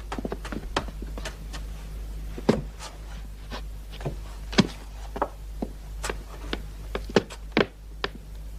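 Footsteps on stairs: a string of irregular knocks and clicks over a low steady hum.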